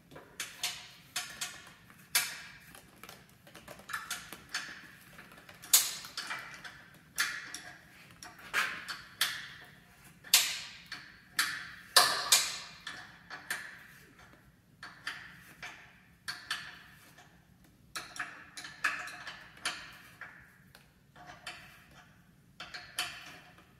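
Sharp metallic clicks and clinks of hand tools working on suspension hardware, irregular, about one or two a second, each with a brief ring.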